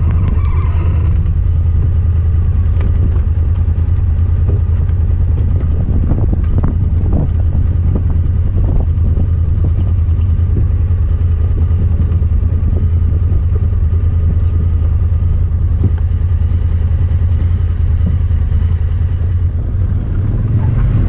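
Honda Talon 1000R side-by-side's parallel-twin engine running at a steady, even speed while driving, with scattered knocks and clicks.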